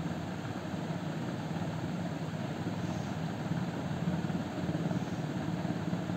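A steady low mechanical hum with a faint hiss, even throughout with no distinct events.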